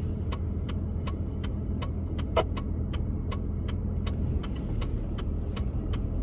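Inside a car with the engine idling: a steady low hum with a regular ticking about three times a second, like the indicator flasher, and one brief sharper sound about two and a half seconds in.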